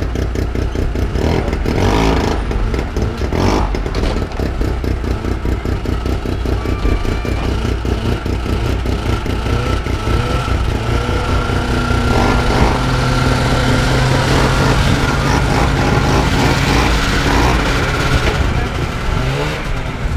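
Engine running nearby with a steady, rhythmic firing beat. A second engine note comes in about halfway through, and the pitch rises and falls a few times near the end as it is revved.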